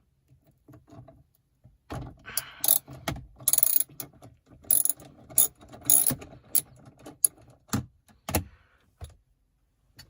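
Socket ratchet working a 10mm bolt loose, its pawl clicking in short, irregular runs with a few knocks of the tool. The clicking starts about two seconds in.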